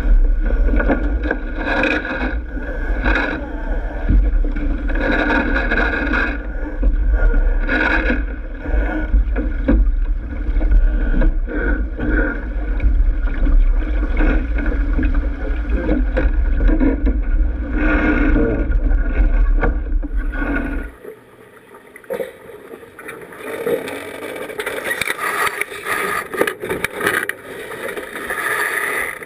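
Wind buffeting the microphone of a camera on a racing keelboat under sail, with water rushing along the hull. About two-thirds of the way through the low wind rumble cuts off suddenly, and rubbing and scraping follow as a crew member's clothing presses against the camera.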